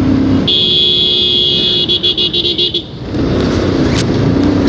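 A vehicle horn sounds: one long blast about half a second in, then broken into a quick string of short toots before stopping a little before three seconds. A motorcycle engine drones underneath, before and after the horn.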